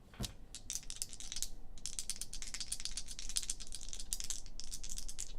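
Dice rattling, a dense run of quick hard clicks lasting about five seconds: dice being shaken and rolled to set how many times the randomizer runs.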